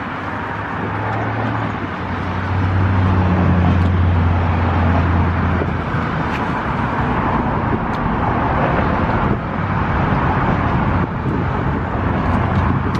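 Steady road-traffic noise, with a vehicle engine's low hum swelling from about a second in and fading after about six seconds.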